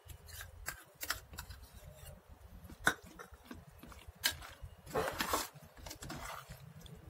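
A spoon stirring a thick, creamy salad in a stainless steel bowl: wet scraping with scattered clinks against the metal. There is a sharp clink about three seconds in and another a little over a second later, then a longer scrape about five seconds in.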